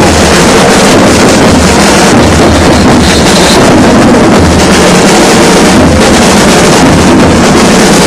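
Loud carnival parade music with a heavy low beat, mixed with crowd noise and so loud that it overloads the camcorder microphone into a steady distorted roar.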